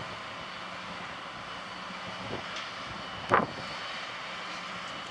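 Steady drone of a bucket-wheel excavator's machinery running, with a faint steady hum. One loud clank comes a little over three seconds in.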